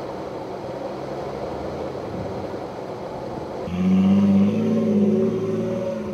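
A 4x4 engine idling steadily. About three and a half seconds in, a louder engine takes over: a stripped, roll-caged Suzuki SJ off-roader driving slowly past, its engine note rising and falling a little.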